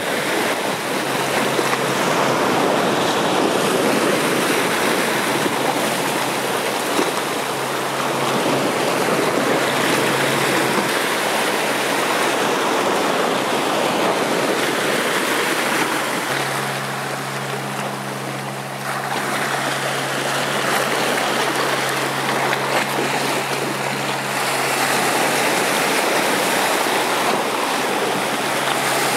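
Sea surf surging and washing over flat rock ledges, a steady rush of foaming water. A faint low steady hum runs underneath, stronger in the middle.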